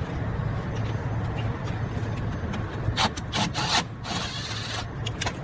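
A power tool working on the truck's bumper fasteners, heard as a few short rasping bursts, a longer one, and two more brief ones near the end, over a steady low hum.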